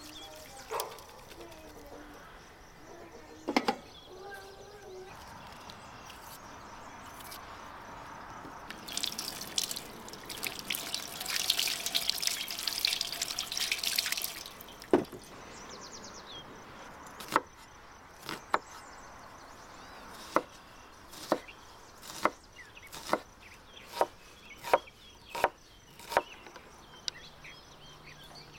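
A single knock, then water running or pouring for about five seconds. After that comes a knife chopping food on a cutting board with sharp, evenly spaced strokes, about one a second.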